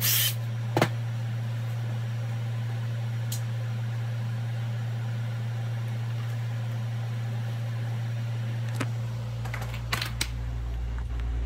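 A steady low hum fills the small workshop, with a few sharp clicks near the start. From about nine seconds in, a deeper rumble and a couple more clicks come from the phone being handled.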